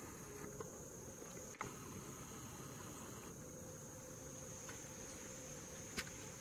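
Faint, steady, high-pitched insect trill, such as crickets, in rural outdoor ambience, with a few soft clicks.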